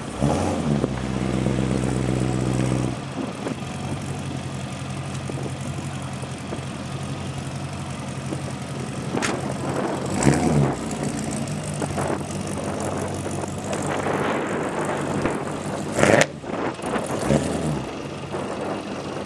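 A 1956 Chevrolet 210's engine and exhaust running at a fast idle, which drops to a steady lower idle about three seconds in. Several short throttle blips follow, the sharpest about sixteen seconds in, and the car moves off near the end.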